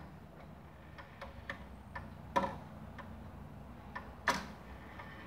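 Urgos grandfather clock movement ticking faintly and steadily, with two louder clicks about two and a half and four and a quarter seconds in.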